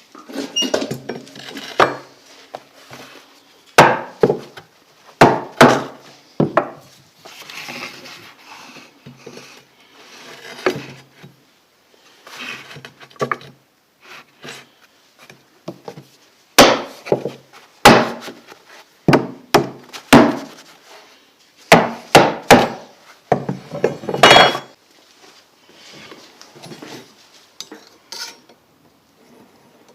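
Irregular hammer knocks on wood, several in quick succession, with softer scraping and metal clattering between them.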